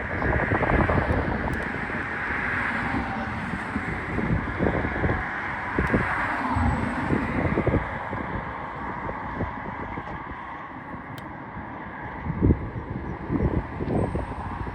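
Wind buffeting the microphone in uneven low gusts, over a steady outdoor background hiss.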